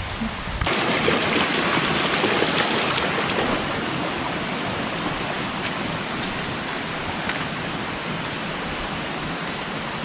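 Steady rushing of flowing stream water, an even hiss that sets in sharply about half a second in and eases a little after the first few seconds.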